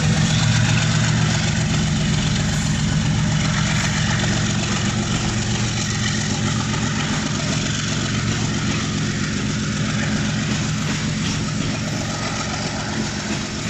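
Pakistan Railways GEU-40 diesel-electric locomotive's engine working hard after the driver notches up, pulling a loaded coal train, with the hopper wagons rolling past on the rails. The engine's steady throb gets slowly quieter as the locomotive draws away.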